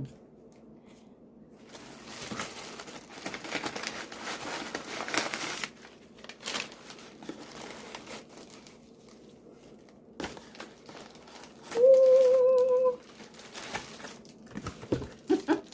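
Packing wrap crumpling and rustling as items are unwrapped from a parcel, loudest in a long rustle early on and then in scattered crinkles. About twelve seconds in, a short wavering hum sounds for about a second.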